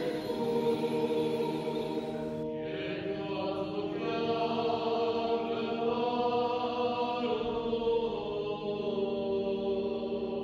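Choir chanting in long, sustained held notes, slowly changing pitch, like church chant; the sound shifts about two and a half seconds in.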